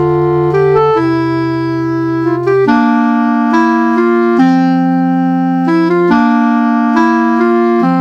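Background music: slow, sustained chords over a low bass line, changing about once a second.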